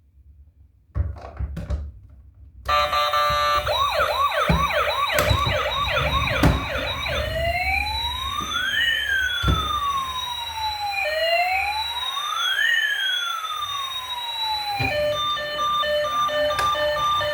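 Battery-powered toy emergency vehicle's electronic siren. After a few handling thumps it switches on about three seconds in with a fast yelp, then slows into a long rising-and-falling wail. Near the end it changes to a beeping electronic tune.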